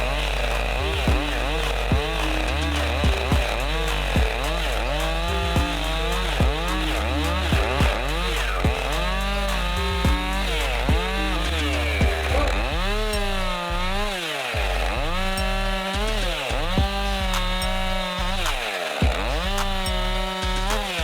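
Chainsaw running under load in a chainsaw mill, ripping a log lengthwise into lumber. Its pitch rises and falls over and over as the cut loads and frees the engine.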